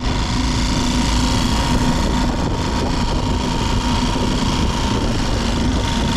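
Mercury F3.5 single-cylinder four-stroke outboard (Tohatsu-built) running at a steady, even pitch as it pushes an inflatable boat, with water splashing along the hull. It runs without stalling after a wrongly fitted extra filter, which the owner suspected of making it stall, was removed.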